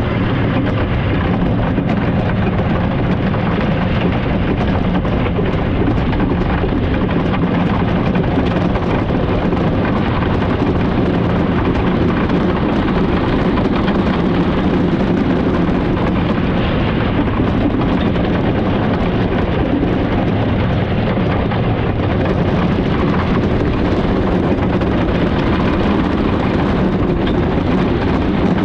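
Wooden roller coaster train, a Great Coasters International train, running along the wooden track with a loud, steady rumble.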